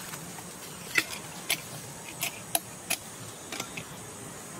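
A handful of irregular sharp ticks, about seven over three seconds, the first the loudest, over a faint steady background hiss.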